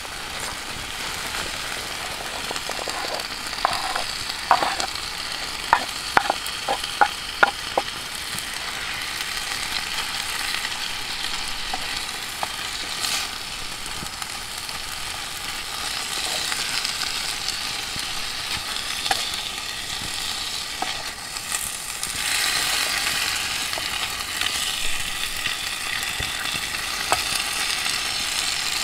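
Bacon sizzling in a steel frying pan over campfire embers, as diced potatoes are added and stirred in. A run of sharp clicks and taps about four to eight seconds in, and the sizzle grows a little louder near the end.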